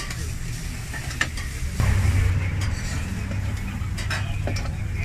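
A large knife scraping and tapping on a wooden chopping board as chopped barbacoa is scooped into a tortilla, with several short sharp clicks. Behind it are a steady sizzle and a low rumble that gets louder about two seconds in.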